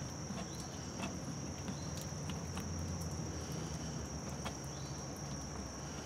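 Steady high-pitched drone of insects, with scattered faint clicks as the old brass city water inlet fitting is twisted by hand in the RV wall.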